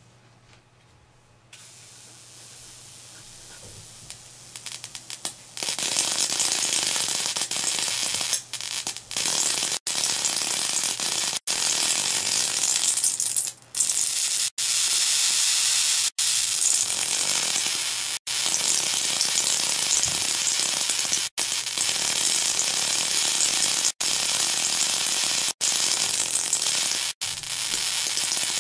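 High-voltage arc from a voltage multiplier driven by a ZVS driver through a current-limiting resistor, jumping the gap between a drill-bit electrode and a probe. A faint hiss and a few crackles at first, then from about five seconds in a loud continuous hissing crackle that breaks off for an instant every couple of seconds.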